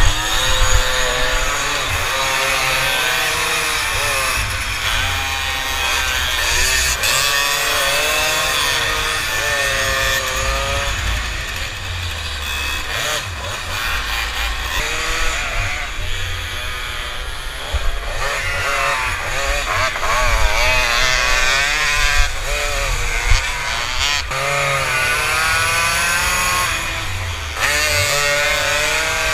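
Tomos Automatic moped's two-stroke engine revving hard in a race, its pitch rising and falling again and again as it accelerates and slows through the turns. Other mopeds' engines are heard alongside.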